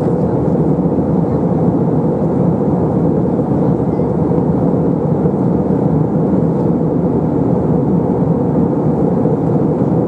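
Steady, even roar of an Airbus A321 in flight, its engines and rushing air heard from a window seat inside the cabin.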